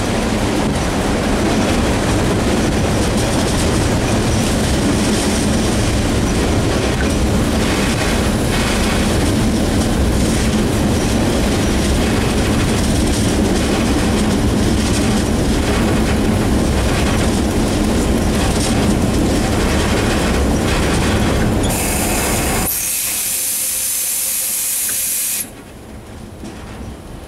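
Class 661 diesel locomotive (an EMD G16) running under way, its engine and the wheels clattering on the rails making a loud, steady din. About 22 seconds in, a loud hiss takes over for about three seconds as the engine noise drops away, then everything goes quieter.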